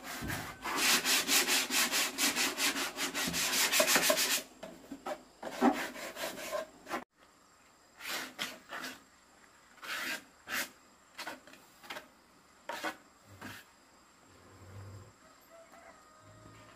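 A wooden frame sanded by hand, rubbing back and forth in fast, close strokes, then after a break about seven seconds in, slower separate strokes that die away near the end.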